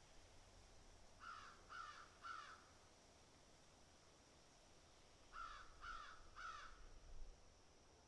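Crow cawing: two series of three harsh caws, about four seconds apart, heard faintly.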